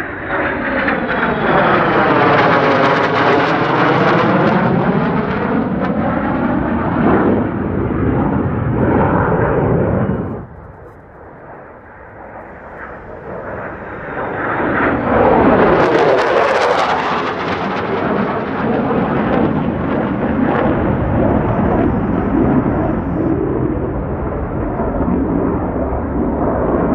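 Fighter jet engines of an F-22 Raptor and F-35A in a close formation flyby: a loud jet rush with a sweeping tone that dips and rises as they pass. About ten seconds in the noise drops off abruptly. It then builds again to a loud, hissing jet roar around the sixteen-second mark and settles into a steady rumble.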